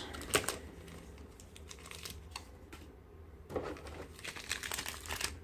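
Packaging and cards being handled: scattered crinkles and light clicks, busier in the last couple of seconds.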